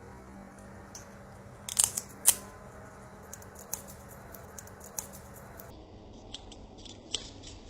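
A series of sharp clicks and taps: two loud ones about two seconds in, then lighter, scattered clicks, with a quick run of them near the end, over a low steady hum.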